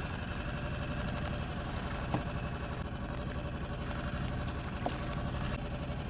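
Small outboard motor idling steadily, with two brief knocks about two and five seconds in.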